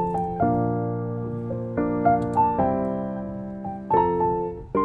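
Background piano music: notes and chords struck one after another, each fading away before the next.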